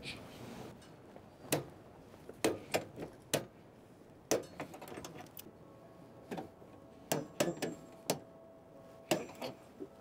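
Irregular sharp metallic clicks and clinks of hand tools and fittings, about a dozen, as an air conditioner's outdoor unit is connected up to its refrigerant pipes.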